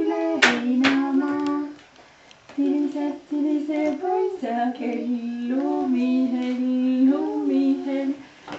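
A woman and a young child singing a simple song in high voices, with held notes stepping up and down and a short break about two seconds in. Two sharp clicks or claps sound near the start.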